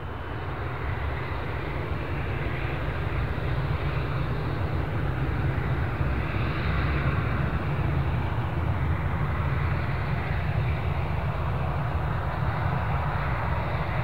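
Airbus A319CJ's twin CFM56 turbofan engines running steadily at taxi power, a continuous jet noise with a deep rumble underneath.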